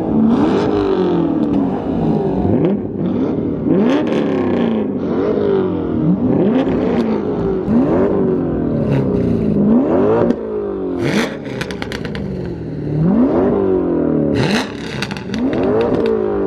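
Many Corvette V8 engines revving together, overlapping. Each rev climbs quickly in pitch and falls back more slowly, over and over, about once a second, making a continuous din.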